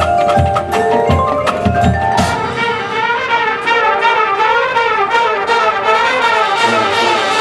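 Drum and bugle corps brass and percussion playing. Drum hits under held notes open the passage, then about two seconds in the full horn line comes in loud with a moving, wavering melody over mallet percussion.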